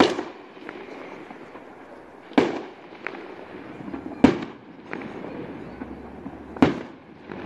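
Aerial firework shells bursting: four loud bangs about two seconds apart, each trailing off in an echo, with fainter pops between them.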